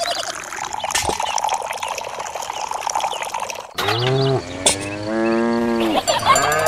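Water trickling and splashing from a small pipe into a pond. After an abrupt cut a little past halfway, a cow moos in two long calls, and another wavering animal call follows near the end.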